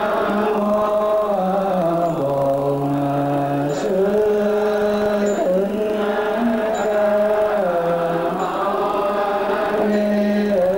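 A man's voice chanting a slow, melodic Vietnamese Buddhist liturgical chant, holding each note for a second or two and stepping up and down between pitches.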